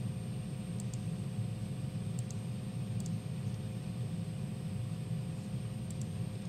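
Steady low room hum with a few faint paired clicks from a computer mouse, four times over the stretch.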